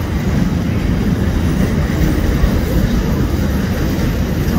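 Vintage railway passenger carriages rolling past at close range: a steady, heavy rumble of wheels on the rails.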